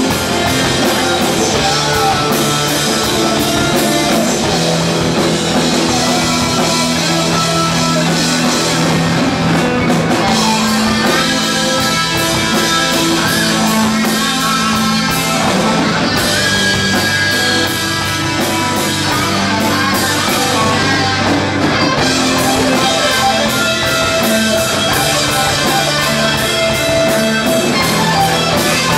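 Live rock band playing loud, with electric guitars, bass guitar and drum kit.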